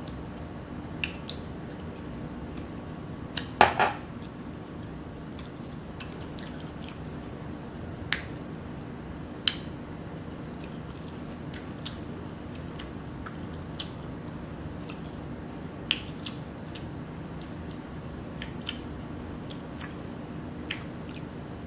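Eating sounds: a fork clicking and scraping on a plate at scattered moments, with quiet chewing, over a steady low hum. The loudest is a sharp double knock about three and a half seconds in.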